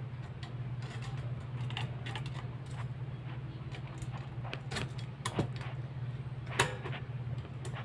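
Metal wire parts of a dish rack clinking and tapping as they are handled and fitted together: scattered small clicks, with a sharper clack about six and a half seconds in. A steady low hum runs underneath.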